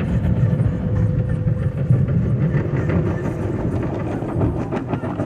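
Automatic car wash heard from inside the car: the spinning cloth wash brushes rumble and slap against the body and windshield in a steady, loud churn of rapid clatter.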